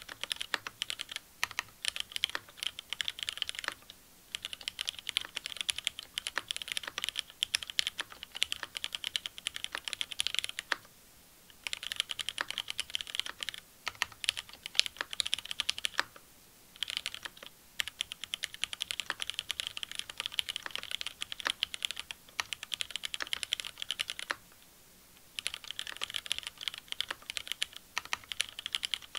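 Steady fast typing on a Lin Triple A mechanical keyboard with lubed Cherry MX Black linear switches, an aluminium plate with Poron foam and GMK Shoko keycaps: a dense stream of keystrokes in runs of several seconds, broken by short pauses about four, eleven, sixteen and twenty-five seconds in.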